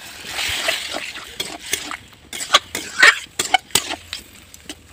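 Boiled chickpeas and their cooking water poured into a hot kadai of potato curry, splashing and hissing in the pan. A spoon then stirs the curry, knocking against the metal pan in a run of short sharp clicks.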